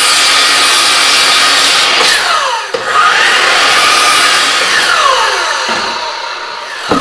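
Ridgid miter saw cutting a wooden board: its motor whines at full speed, winds down about two seconds in, starts again right away for a second cut, then coasts down. A knock comes near the end.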